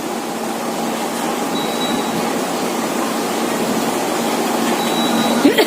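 Steady machine whir with a low hum underneath from a running motor-driven appliance, with a brief sharper sound just before the end.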